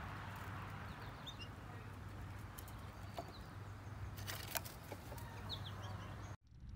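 Quiet garden ambience: a steady low hum with a few short, high chirps scattered through it and a handful of light taps about three to five seconds in.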